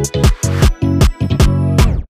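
Electronic dance music with a fast kick-drum beat, about four beats a second, over a steady bass line.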